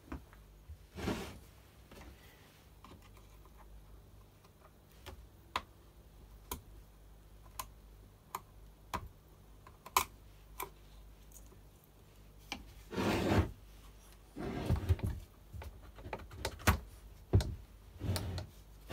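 Hands and small tools working on a Makita chainsaw's casing as it is taken apart: scattered clicks and taps with a few short rubbing scrapes, over a faint steady low hum.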